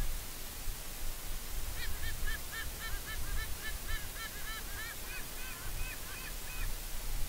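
White-bellied sea eagles calling around mating: a rapid run of short, goose-like honking notes, several a second. The run starts about two seconds in and stops shortly before the end, over a steady background hiss.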